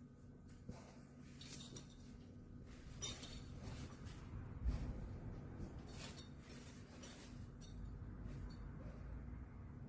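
Scattered light clicks and clinks at an uneven pace, with one louder knock about halfway through.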